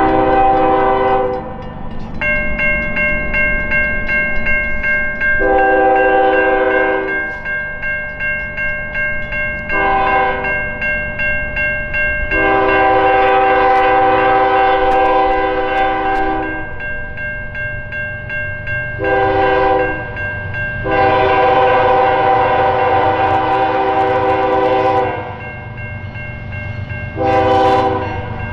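Norfolk Southern freight locomotive's air horn sounding a string of long and short blasts for a grade crossing as the train approaches. The crossing's warning bell rings from about two seconds in, over the low rumble of the diesel locomotive.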